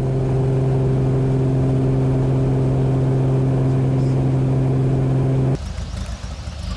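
Cessna 185 floatplane's Continental IO-550 engine and MT propeller running at high power during a step taxi, heard in the cabin as a loud, steady drone. About five and a half seconds in it cuts off suddenly to a quieter, rougher engine sound heard from outside the aircraft.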